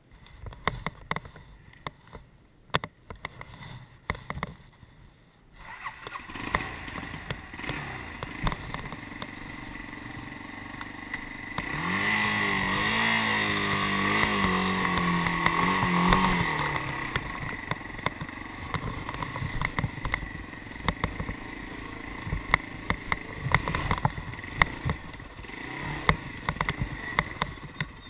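Motorcycle engine. There are scattered clicks at first, then the engine comes in about six seconds in and runs steadily. It is revved louder with a rising and falling pitch for about four seconds in the middle, then settles back to a steady, quieter run with frequent clicks.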